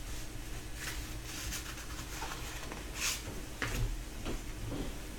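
Trading cards being slid and laid down on a desk mat: a handful of soft, brief swishes and rustles, the loudest about three seconds in, over a low steady hum.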